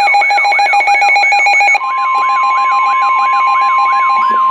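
Weather radio alert sounding: a siren wailing up and down about twice a second over rapid beeping. About two seconds in, the steady single-pitch NOAA Weather Radio 1050 Hz warning tone joins it.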